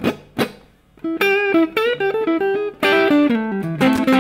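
Electric guitar, a Stratocaster-style, played through a direct recording rig: two short strums, then from about a second in a melodic phrase of single notes with string bends, with a few chords mixed in.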